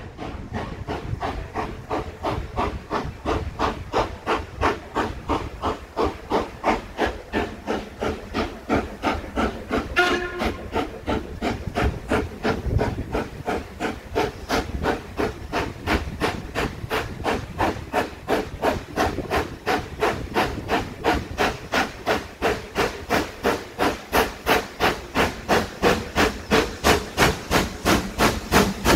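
Ivatt Class 2MT tank steam locomotive working a train toward the listener: steady, sharp exhaust beats from the chimney, about three a second, growing louder as it approaches. A brief whistle sounds about ten seconds in.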